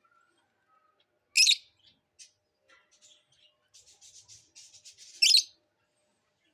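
Small pet parrots chirping: two loud, shrill calls about a second and a half in and again near the end, with a quick run of fainter chattering chirps between them.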